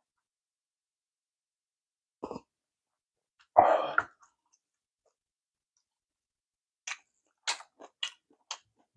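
A brief swallow, then one loud rough throat sound lasting about half a second right after drinking from a cup, like a cough or a clearing of the throat. Near the end come several soft, sharp mouth clicks of eating.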